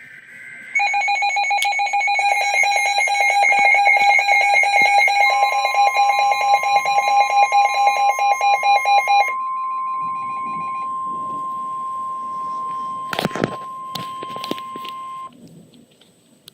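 Weather alert radio alarm: a loud, rapidly pulsing electronic beep of several shrill tones that stops about nine seconds in. From about five seconds in it overlaps the steady 1050 Hz NOAA Weather Radio warning alarm tone, which runs on alone, with a few clicks near the end, and cuts off about fifteen seconds in, signalling a warning broadcast about to begin.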